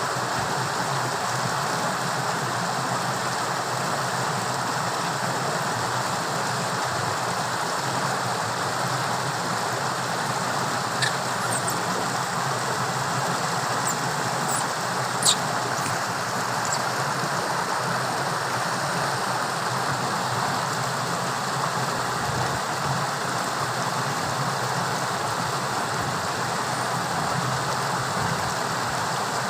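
Steady rush of fast-running, torrential water, with two short sharp high clicks near the middle.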